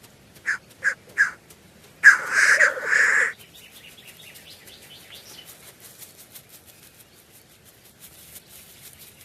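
Male black grouse calling on a lek: a few short clucks in the first second, then a loud hissing call lasting just over a second, followed by faint rapid ticking.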